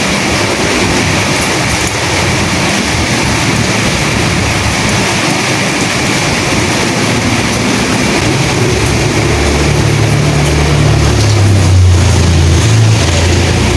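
Steady rain and wind noise. A low rumble builds from about eight seconds in and is loudest in the last few seconds.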